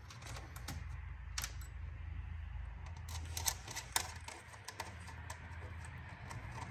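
Light, irregular clicks and taps as the electric fan assembly and small metal fasteners are handled and set into an aluminum fan shroud, over a low steady hum.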